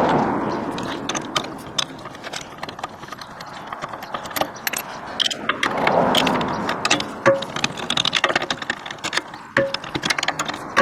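Metal clinks, rattles and scraping of a wheel brace and locking wheel nut key being worked on a car's wheel nuts to loosen them, with many short sharp clicks throughout.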